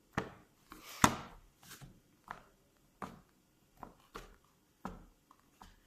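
Irregular sharp taps and clicks of a wooden chopstick stirring slime in a small dish, about a dozen in a few seconds, the loudest about a second in.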